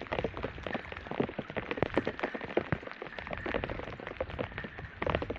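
Rain falling hard in a storm, the drops striking close by in quick, irregular taps over a steady hiss.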